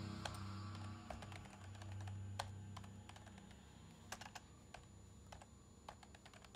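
Computer keyboard keys pressed now and then, a dozen or so scattered, irregular clicks rather than steady typing. Low background music fades out during the first few seconds.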